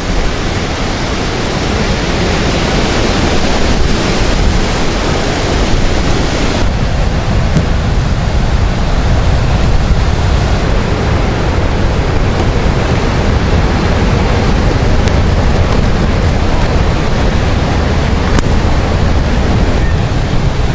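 Strong storm wind buffeting the microphone and a tent, a loud steady rushing noise. From about six seconds in it is heard from inside a Helsport dome tent and sounds duller at the top end.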